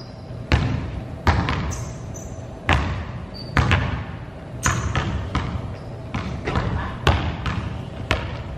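Basketballs bouncing on a gym floor, about ten thuds at uneven intervals, each echoing in the large empty hall.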